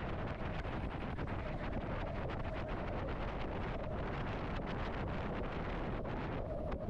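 Wind buffeting the microphone, a steady rumbling rush with a constant hum underneath, as when out on open water.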